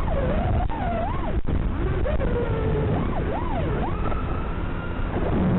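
FPV quadcopter's brushless motors whining, the pitch sweeping steeply up and down again and again with the throttle, over a steady rushing noise.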